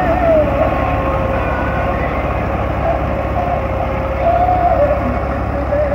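Belarus MTZ tractor's diesel engine running steadily under load as the tractor works its front and rear blades through wet mud.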